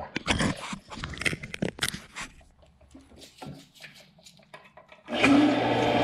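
Clicks and knocks of handling at the well pump's pressure-switch fitting, then about five seconds in the well pump starts with a sudden steady hum and a rush of water forced out of the fitting, which has just been cleared of a scale blockage.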